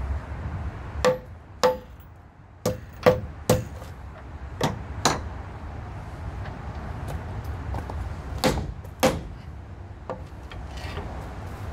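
Lump hammer striking the end of a fairground ride's painted tram beam to knock it tight at its joint: about ten sharp blows in short groups of two or three, each with a brief ring.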